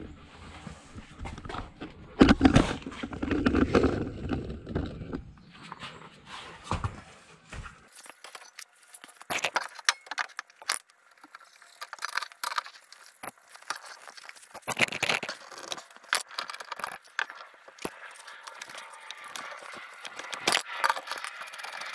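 Handling rumble and knocks for the first several seconds, then scattered sharp metal clinks and scrapes as the mower blade is handled and a socket wrench is fitted to the blade bolt under the deck.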